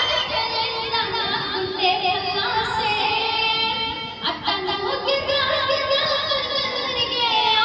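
A boy singing into a microphone over backing music, with a sung melody that holds and bends through long notes.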